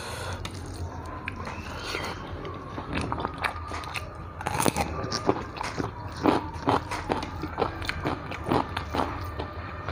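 Loud, crisp crunching bites and chewing of a raw carrot, close on a clip-on microphone, the crunches coming thick and fast from about three seconds in.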